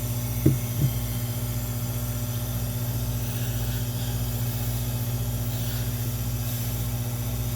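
A steady low hum with a slight flutter, and two short knocks about half a second in.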